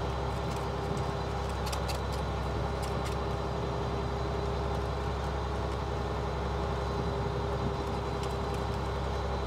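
Fishing boat's diesel engine running steadily, a constant drone with a steady hum, with a few faint clicks about two to three seconds in.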